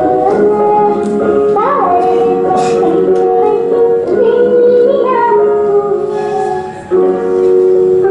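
A song sung by a woman over instrumental accompaniment, a melody of long held notes. It dips briefly between phrases near the end.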